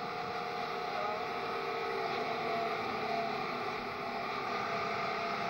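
Steady engine drone of a motorcycle running close behind a group of racing cyclists on a fast descent, with faint held engine tones in it.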